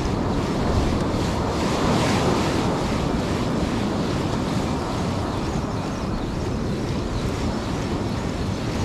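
Ocean surf breaking on a beach, with wind buffeting the microphone: a steady rushing noise that swells slightly about two seconds in.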